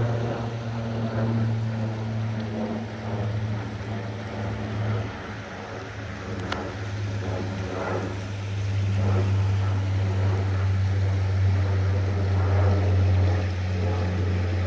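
Propeller aircraft circling low overhead, a steady droning hum that drops slightly in pitch about five seconds in as it banks away.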